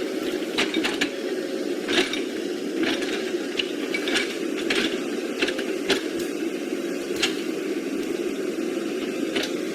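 Small electric motor and gearbox of a radio-controlled toy vehicle running with a steady whir, with irregular sharp clicks and knocks of plastic parts.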